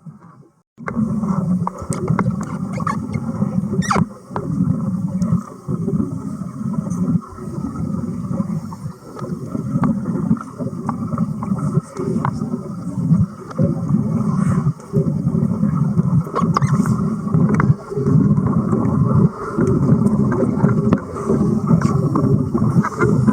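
Underwater arc welding: a loud, steady bubbling, crackling noise from the arc under water, with brief dips every second or two.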